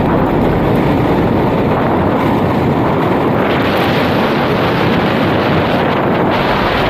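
Wind buffeting on the microphone mixed with the rolling roar of a downhill longboard on Seismic Alpha urethane wheels running fast on asphalt. The rush is loud and steady, growing hissier about halfway through.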